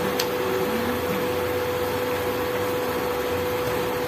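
Chicken pieces cooking in a frying pan on an induction cooktop: a steady, even hiss with a constant hum from the cooker underneath.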